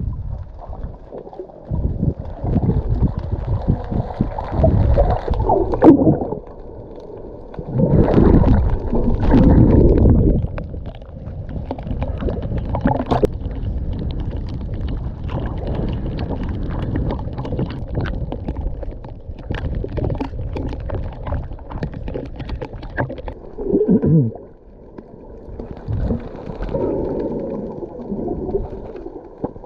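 Muffled water sloshing and gurgling of a snorkeler swimming at and just below the surface, heard through a waterproof camera housing in the water. It comes in several louder surges.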